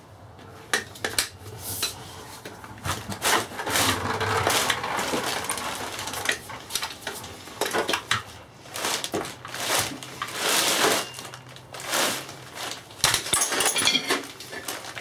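Repeated metal clinks and knocks of a breaker bar and socket being fitted to and levered on a gearbox's casing bolts to break them loose, with some longer scraping and rustling between the knocks.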